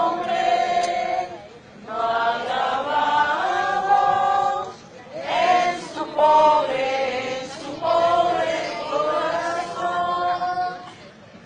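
Nuns chanting a sung prayer together, in slow phrases of held notes with short pauses for breath between them.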